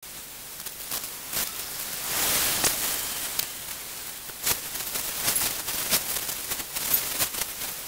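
Steady static-like hiss broken by irregular crackles and sharp clicks, with a louder swell of hiss about two seconds in.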